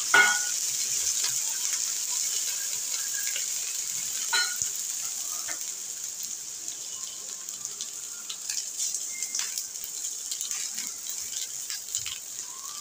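Green chillies and garlic cloves sizzling in hot oil in a frying pan, a steady hiss with scattered small crackles that slowly dies down. A sharp knock right at the start.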